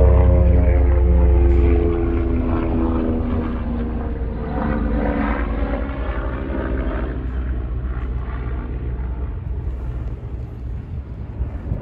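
Kawasaki ZX-6R 636's inline-four engine running, its pitch sinking slowly over the first few seconds. It is loudest in the first two seconds and settles into a steady drone after that.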